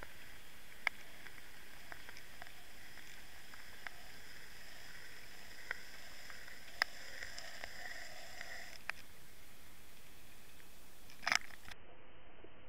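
Underwater sound picked up by a Water Wolf camera towed on the fishing line: a steady hiss of water rushing past as the swimbait is retrieved, with scattered sharp clicks. A faint high whine comes and goes in the middle, and a louder crackle of clicks comes near the end.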